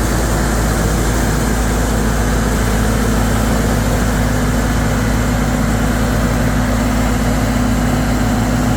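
John Deere 2056 combine harvester running steadily during wheat harvesting, its engine and threshing machinery making a loud, even drone.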